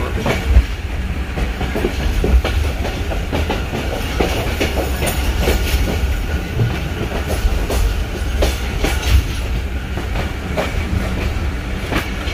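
Passenger train running along the track, heard from aboard a carriage: a steady low rumble with frequent irregular clacks and knocks from the wheels on the rails.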